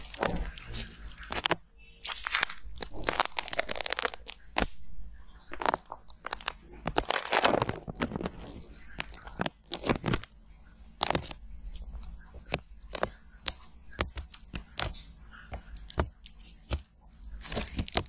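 Dried film being peeled and torn off a silicone ear model with metal tweezers, heard close through a microphone inside the ear: sticky crackling and tearing, with many sharp clicks and a few longer peeling stretches.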